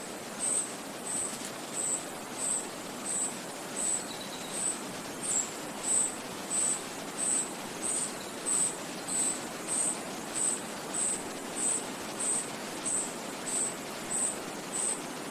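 Forest ambience: a steady rush of wind and a nearby stream, with a high, thin chirp repeating at an even pace, about one and a half times a second.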